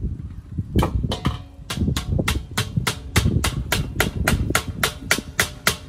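Hammer knocking a push-on axle cap onto a wheel of a Weber kettle grill's leg frame: a fast, even run of sharp strikes, about four a second, starting about a second in.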